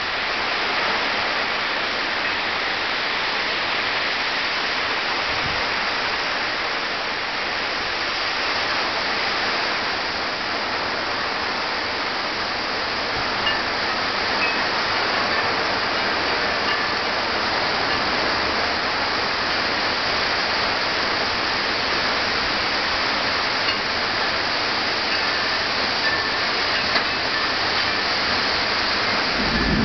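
Heavy rain falling steadily, with a few faint ticks now and then.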